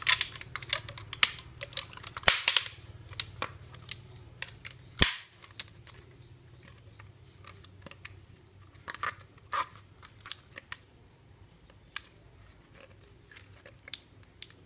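Thin plastic water bottle crackling and clicking as it is handled while rubber bands are stretched and wound around it: a dense burst of crinkles in the first few seconds, two sharp snaps about two and five seconds in, then scattered lighter clicks.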